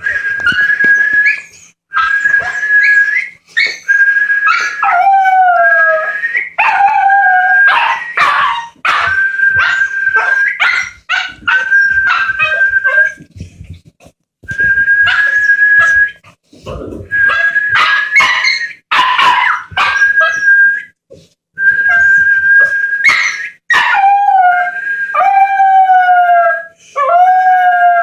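Repeated whistling of one steady high note, with a Jack Russell terrier puppy howling along in drawn-out howls that slide down in pitch.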